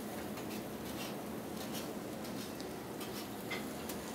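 Food sizzling on a hot flat-top griddle: a low, steady hiss with a few faint pops.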